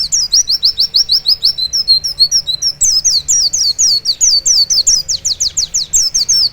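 Male white-eye (pleci) singing its rapid 'nembak' song: a fast, unbroken string of high whistled notes, about five or six a second, each sliding down in pitch. About two seconds in it briefly breaks into lower, flatter twittering notes before the sliding notes resume.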